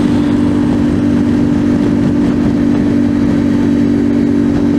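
Yamaha Ténéré 700's parallel-twin engine with a slip-on exhaust, holding a steady note at an 80 mph highway cruise, with wind rushing over the microphone.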